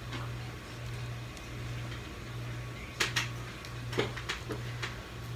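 Steamed blue crab claw shell being cracked and picked apart by hand: a few sharp cracks and clicks, about three and four seconds in, over a steady low hum.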